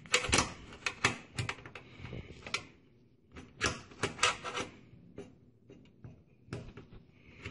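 Irregular plastic and metal clicks and taps, some in quick clusters, as fingers push and wiggle a Gateway 2000 desktop's power switch down into its slot in the chassis to latch it.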